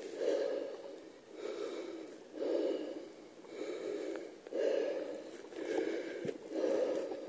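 A person breathing hard close to the microphone, with rhythmic in-and-out breaths about one a second.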